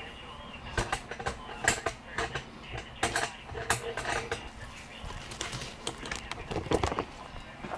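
Irregular light clicks and taps of handling noise, close to the microphone.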